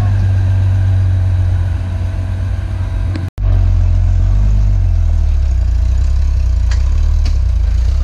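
Off-road 4x4 vehicle engine running with a steady low rumble, dropping out for an instant about three seconds in.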